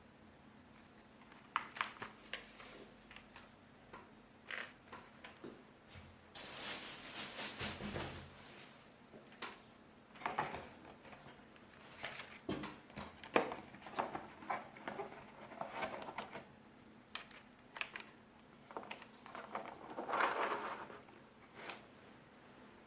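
Handling noises from a plastic wireless keyboard being handled on a table: scattered clicks and taps with rustling. A longer rustle comes about six to eight seconds in, and another around twenty seconds.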